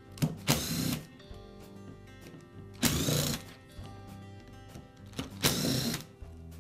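Cordless electric screwdriver running in three short bursts of about half a second each, backing out the screws of an angle grinder's gearbox housing.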